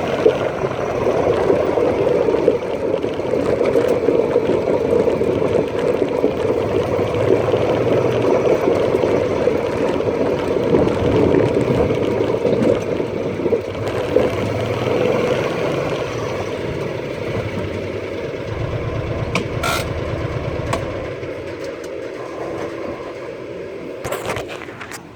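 A vehicle's engine running as it drives, with a steady rumble that eases off in the last few seconds. There is a sharp knock about twenty seconds in and another near the end.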